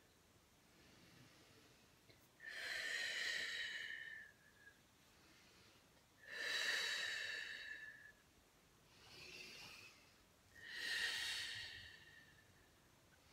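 A person's slow, deep breathing during a yoga flow: three long, hissy breaths about four seconds apart, with a softer breath between the second and third.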